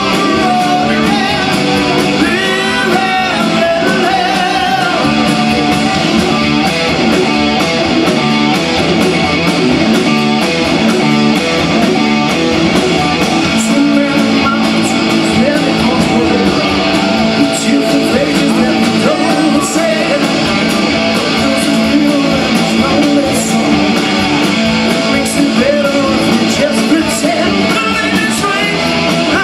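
Live hard rock band playing loud through Marshall amp stacks: distorted electric guitars, bass and drums, with a male lead singer singing over them.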